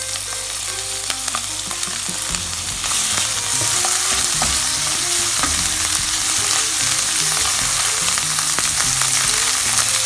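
Sliced mushrooms and garlic-ginger paste sizzling in hot oil in a non-stick frying pan, stirred and pushed around with a silicone spatula. The sizzle grows louder about three seconds in.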